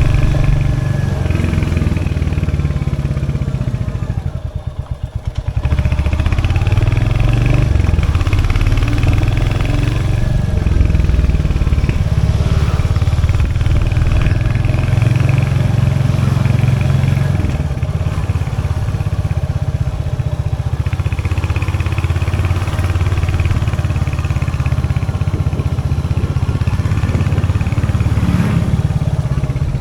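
Royal Enfield Hunter 350's 349cc single-cylinder J-series engine running under throttle, its pitch rising and falling. About four seconds in it drops briefly to slow, separate idle thumps before picking up again.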